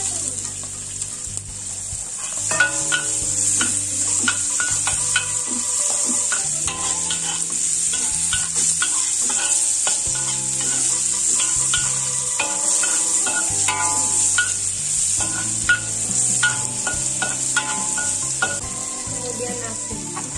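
Hot oil sizzling in a wok as salted fish and freshly added petai beans fry. A metal spatula stirs and scrapes against the wok in short strokes. Background music runs underneath.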